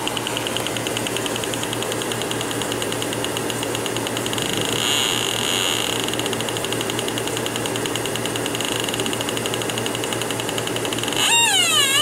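Yokogawa H10B halogen leak detector giving its audible signal as the probe is moved over the evaporator coil's copper return bends: a rapid, even ticking. About a second before the end it breaks into a loud wavering squeal that dips and rises in pitch. The detector is screaming at R22 refrigerant leaking from a return-bend tube.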